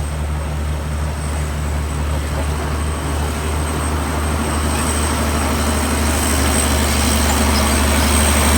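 Bulldozer's diesel engine running steadily with a low hum and a faint high whine, growing gradually louder.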